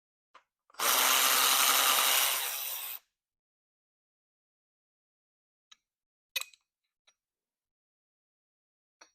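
A power tool runs for about two seconds, backing out one of the 13 mm bolts that hold the thermostat neck. A few light clicks follow as the parts are handled.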